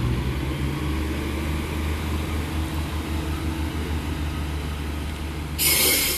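Class 142 Pacer diesel multiple unit pulling away, its diesel engines giving a steady, pulsing low rumble. Near the end a sudden loud hiss cuts in over it.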